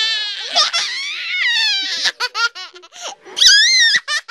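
Little girls laughing and shrieking close to the microphone. A long wavering squeal gives way to a quick run of short laughs, and a loud high-pitched scream comes near the end.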